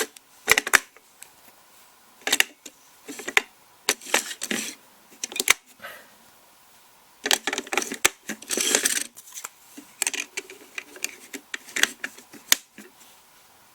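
Three AA batteries being fitted into the opened plastic battery compartment of a toy shooting target: irregular clicks, taps and short rattling clatters of plastic and batteries being handled.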